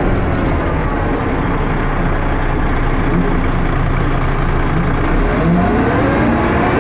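Dennis Arrow bus's diesel engine and ZF automatic gearbox running under way. The engine note falls at the start, stays steady, then rises again from about five seconds in as the bus accelerates.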